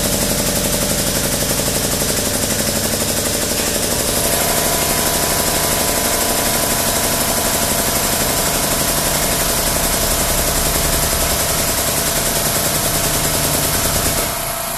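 Air-over-hydraulic long ram's air-driven pump running with a rapid, steady chatter as it pushes the ram out to full extension. About four seconds in, a steady higher whine joins it, and the pump stops shortly before the end.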